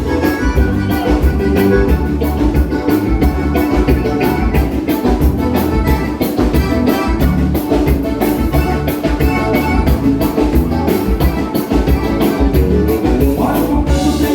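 Live band playing a vanera, the gaúcho dance rhythm of southern Brazil, with drums keeping a fast, steady beat under the melody instruments.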